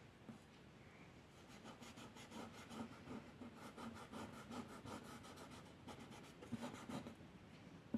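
Drawing strokes on paper: quick, repeated scratching strokes starting about a second and a half in.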